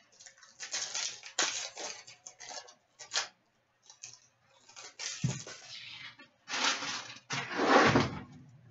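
Sealed hockey card packaging being torn open and handled: irregular crinkling, rustling and tearing of wrapper, in uneven bursts.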